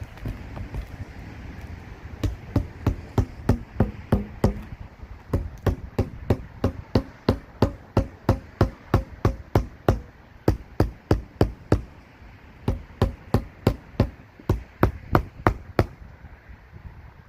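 Rapid hammer strikes on a roof, about four a second, in three runs separated by short pauses.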